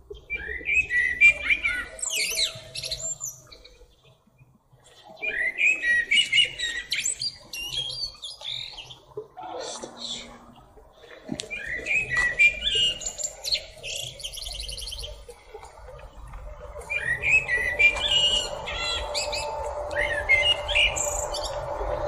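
Male common blackbird singing: four phrases of fluty, gliding warbles, each ending in high, squeaky twittering, with pauses of a second or two between them. A steady low hum comes in beneath the song in the second half.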